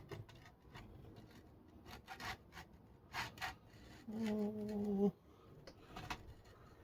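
Light rubbing and scraping with a few soft knocks as a plastic spare-tire brake light ring is slipped into place behind a leaned-forward spare tire. About four seconds in, a steady hum lasting about a second is the loudest sound.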